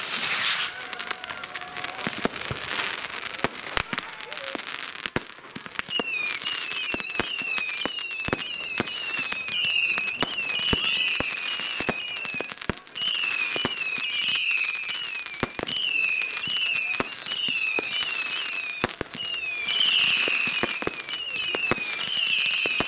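Mass New Year's fireworks: firecrackers and exploding shells banging in rapid, irregular succession. From about six seconds in, a high warbling tone repeats about twice a second over the bangs.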